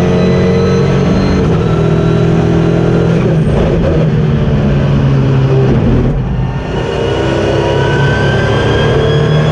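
KTM X-Bow GT4 race car's turbocharged four-cylinder engine running hard under load, heard from inside the cockpit. About six seconds in the note drops away briefly as the driver lifts for a corner, then climbs in pitch again as the car accelerates out.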